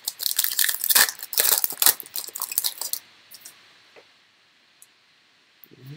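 Foil wrapper of a Panini baseball card pack being torn open and crinkled for about three seconds, followed by a few faint clicks as the cards are handled.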